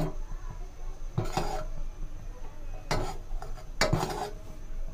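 A metal ladle stirring and knocking against an aluminium saucepan of boiling Kashmiri tea, in several separate clattering strokes a second or two apart. The tea is being beaten to aerate it after baking soda and salt have gone in.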